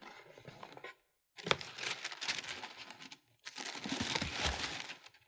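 Packing paper crinkling and rustling as a pair of sneakers is handled out of the shoebox, in two bouts with a sharp crackle about a second and a half in.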